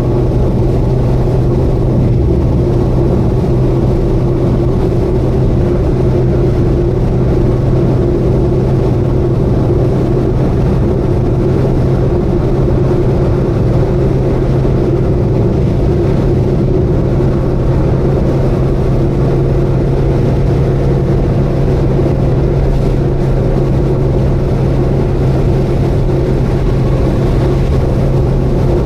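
Subaru Vivio kei car cruising on an expressway: a steady, unchanging drone of engine and road noise with a strong low hum.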